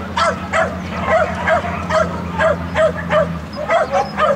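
A dog barking in a quick, steady series of short barks, about two to three a second.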